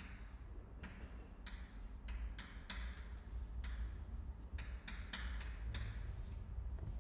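Chalk writing on a blackboard: a string of short, irregular taps and scratches, several a second, as letters are drawn.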